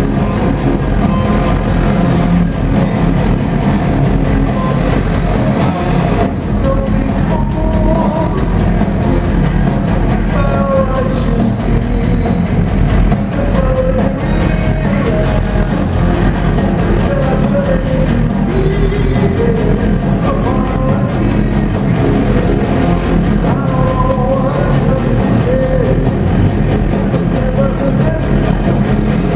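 A rock band playing live, with a male lead vocal singing over electric guitars, bass and drums; loud and continuous, as heard from the audience.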